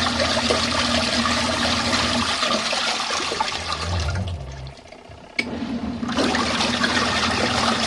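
Small portable washing machine running with water churning over a low motor hum; a little past the middle the churning dies down for about a second, then starts up again suddenly.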